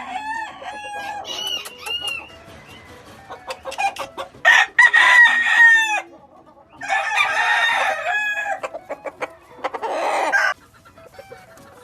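Gamefowl roosters: short clucking calls in the first couple of seconds, then three long, loud crows, each a few seconds apart, the first the loudest.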